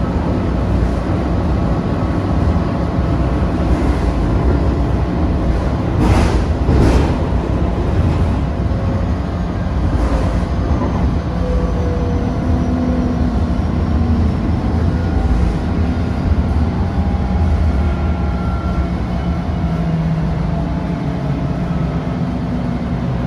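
Inside a Bombardier Flexity light-rail car running at speed: a steady rumble of wheels on rail, with faint electric whines that shift in pitch. A brief louder rushing noise comes about six seconds in.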